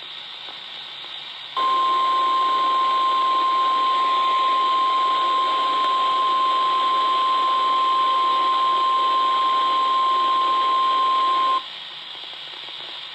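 NOAA Weather Radio warning alarm tone: one steady 1050 Hz tone held for about ten seconds over radio static, switching on and cutting off abruptly. It is the alert signal that comes before a tornado warning broadcast.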